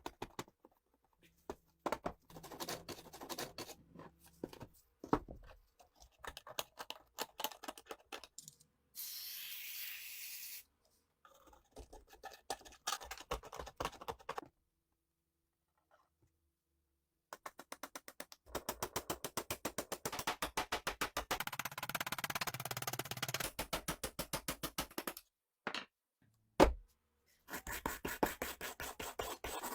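Hand tools scraping and brushing rusty metal gun parts in quick, repeated strokes, in several short stretches with sudden stops between them. A short hiss comes about a third of the way in.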